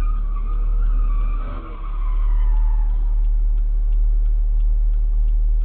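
Steady low rumble of a car stopped in traffic, heard through a dash camera, with a high-pitched squeal that slides down in pitch and dies out about three seconds in.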